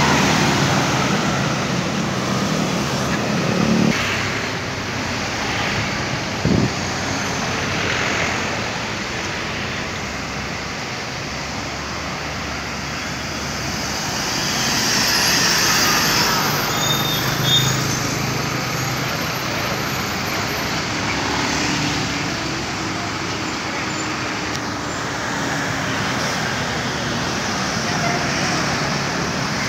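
Busy road traffic with large intercity coaches passing close by: engines running low and tyres on the road, steady and loud. A short thump about six seconds in and a brief hiss around the middle.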